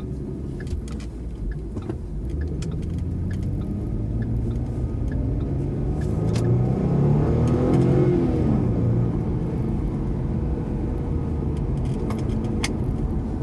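Ford Mustang running on the road, with steady engine and road noise. About six seconds in the engine note rises as the car accelerates, then eases off a couple of seconds later.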